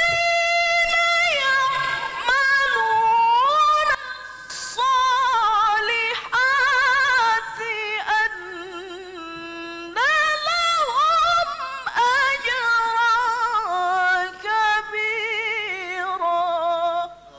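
A qari's solo voice reciting the Qur'an in melodic, chanted style, drawing out long held notes with wavering ornaments and pitch turns, in phrases broken by short pauses for breath.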